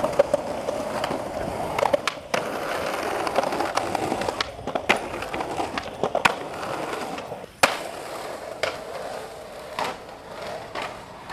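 Skateboard wheels rolling over pavement and brick, with repeated sharp clacks and snaps of the board popping and hitting the ground. The loudest clack comes about two-thirds of the way in, and the rolling is quieter in the second half.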